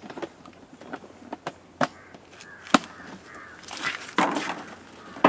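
Crows cawing a few times in the background, mixed with scattered sharp clicks and taps. The loudest click comes just under three seconds in, and a louder rasping call follows about four seconds in.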